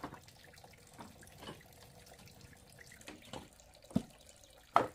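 Water dripping and splashing in irregular drops, like runoff from a tap or pipe, with the two sharpest splashes near the end.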